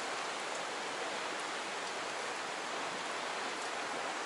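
Steady rush of flowing water over rock, an even hiss with a few faint ticks of splashing.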